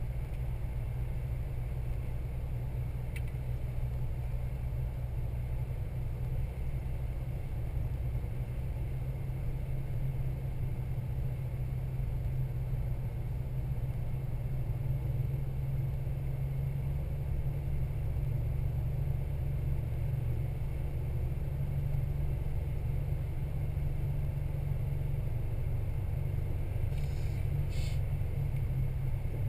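Toyota Land Cruiser 80-series driving steadily: an even, low rumble of engine and road noise, with faint clicks about three seconds in and near the end.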